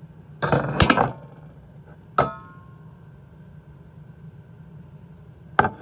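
Stainless steel pots and pans knocking and clanking together as they are handled: a quick clatter about half a second in, a single ringing clang about two seconds in, and another knock near the end.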